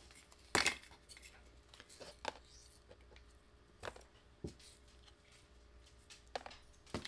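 Small plastic Tic Tac containers filled with diamond-painting drills being set down one after another in a clear plastic storage box: sharp plastic clicks and clacks, the loudest about half a second in, with quieter ones scattered through.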